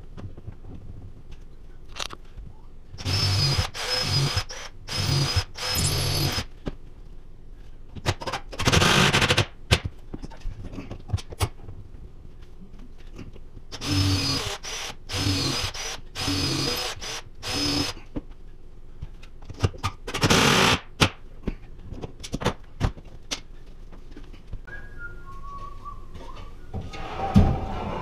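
Cordless drill driving screws in two sets of short trigger pulls, four or five quick runs each with a steady high whine. Scattered knocks and clicks of handling in between.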